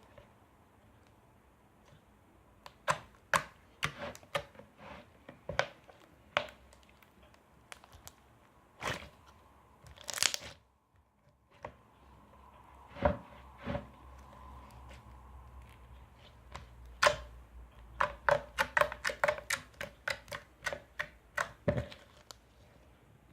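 Purple slime being squeezed and stretched by hand, giving irregular sharp clicks and pops as air pockets burst, with a fast run of clicks toward the end.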